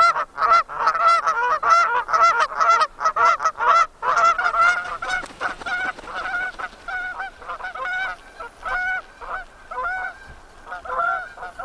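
A flock of Canada geese honking, many rapid calls overlapping at first, then thinning out and growing fainter from about halfway as the birds fly off.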